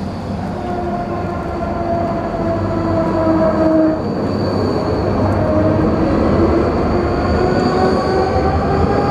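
Bombardier Cityrunner low-floor electric tram passing close by, wheels rumbling on the street track under the whine of its electric drive. The whine sags slightly, then from about four seconds in rises steadily in pitch as the tram picks up speed.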